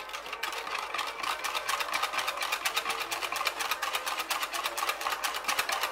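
Wire balloon whisk beating a liquid egg-and-milk custard in a plastic measuring jug, its wires clicking against the jug in a fast, even rhythm of about six strokes a second.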